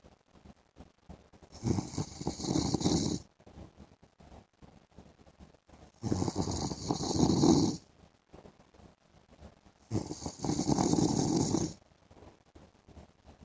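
A man snoring in his sleep: three snores, each less than two seconds long, in a steady rhythm about four seconds apart, with quiet breathing between them.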